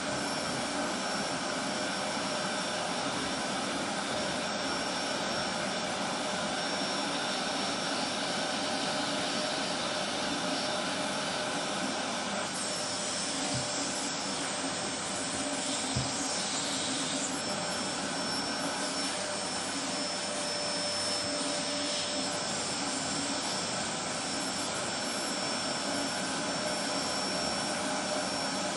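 Vacuum cleaner running steadily on stairs, a constant rushing drone with a steady high whine, and a light knock or two partway through.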